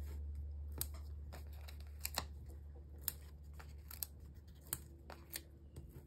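Irregular small clicks and ticks, roughly two a second, of Stampin' Dimensionals foam adhesive dots being peeled from their sheet and pressed onto paper pieces. A low steady hum fades away underneath.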